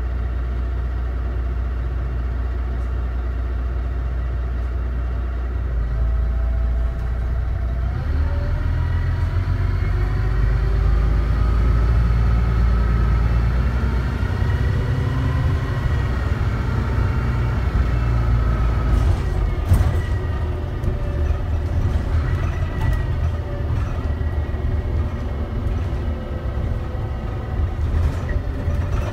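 Engine and drivetrain of a DAF DB250 double-decker bus, running steadily at idle and then pulling away about six seconds in. Its whine rises in pitch as the bus accelerates, then levels off. A sharp knock comes about twenty seconds in.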